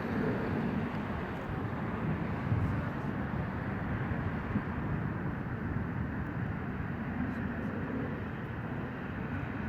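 Jet airliner engines of an Airbus A350-900 making a steady rumble.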